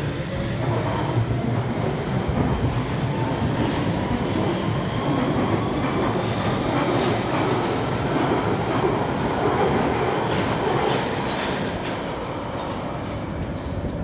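London Underground Central Line 1992 Stock tube train pulling out along the platform, its wheels and running gear rumbling steadily, with a faint whine rising in pitch as it gathers speed. The noise eases a little near the end as the carriages pass.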